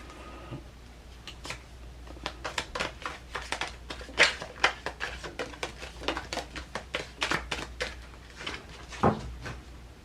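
Oracle cards being handled, shuffled and laid down on a table: a run of light, irregular clicks and taps, a few a second. The loudest tap comes about nine seconds in.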